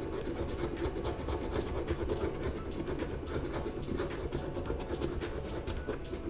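Scratch-off lottery ticket being scratched: rapid, continuous scraping strokes across the card's coating.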